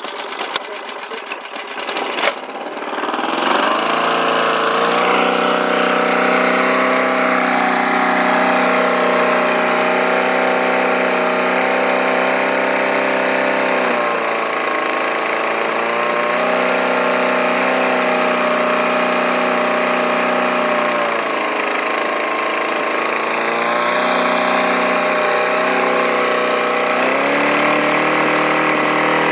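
Small petrol lawn mower engine catching after a few irregular knocks, then running loud and fast, its speed dipping and picking back up several times.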